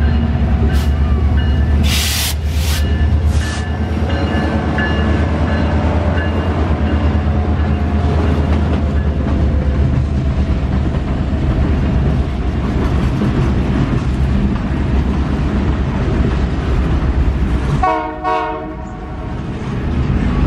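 Canadian Pacific GP20C-ECO diesel locomotive passing at low speed, followed by boxcars rolling by with a steady low rumble of wheels on rail. A few short sharp noises come about two seconds in.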